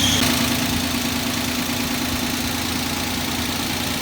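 Freshly rebuilt Suzuki H25A 2.5-litre V6 idling on its first start, with a light ticking from the hydraulic lifters, which are still empty and not yet filled with oil. A high thin tone cuts off just after the start, leaving the steady engine hum.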